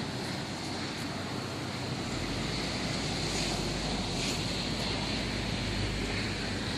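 Steady wind noise with a low rumble that grows heavier about two seconds in.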